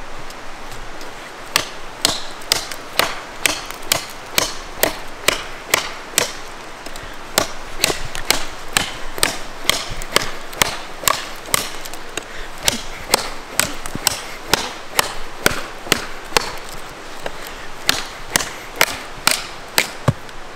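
Large handmade bushcraft knife chopping into a dead sapling: a steady run of sharp blade-on-wood blows, about two a second, beginning a second or two in.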